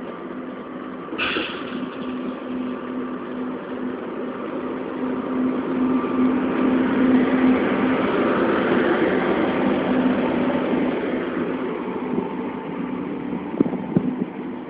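SNCF BB 17000-class electric locomotive pulling away with a train of VB2N double-deck coaches: a steady hum under the growing rumble of the coaches rolling past, with a brief high-pitched sound about a second in and a few sharp knocks near the end.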